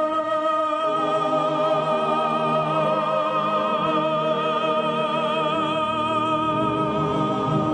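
Operatic tenor singing one long held note with vibrato over orchestral accompaniment.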